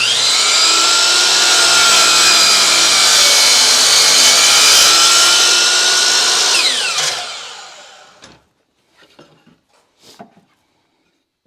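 Table saw switched on, running through a cut in wood, then switched off about seven seconds in, its blade spinning down with a falling pitch. A few light knocks of wood being handled follow.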